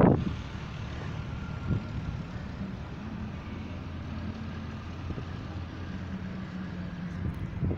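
A steady low engine hum, as of a motor or vehicle running.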